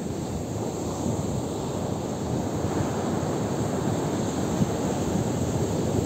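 Ocean surf breaking and washing up a sandy beach, a steady rushing that swells a little toward the end as the next wave breaks, with wind rumbling on the microphone.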